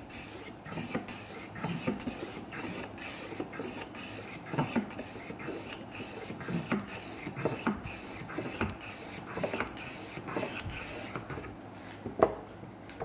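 Metal bench plane shaving the edge of an ash stool leg in short, quick strokes, about two or three a second, each a dry rasping swish of the iron cutting facets into the wood. A sharp knock near the end.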